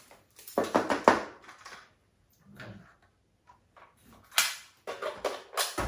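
Plastic robot-vacuum dustbin being opened, handled and tapped while dust and debris are shaken out onto a wooden floor: short bouts of clatter and rustling, loudest about a second in and again near the end.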